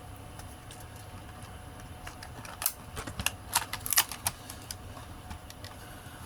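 Light clicks and taps of a small diecast model car being handled on a hard surface, a quick cluster of them in the middle.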